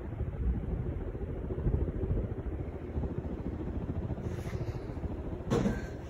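Emerson Fresco ceiling fan with four blades spinning on high speed: a steady, pulsing whoosh of the blades and the air they push onto the microphone. A brief, louder burst comes near the end.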